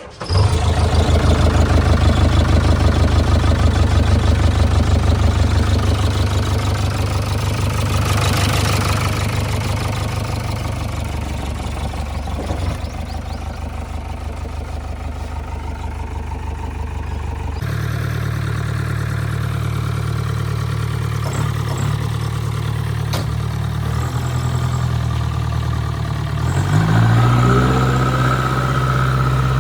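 Heavy diesel engine running steadily. Its sound changes abruptly about two-thirds of the way through, and near the end it revs up with a rising whine.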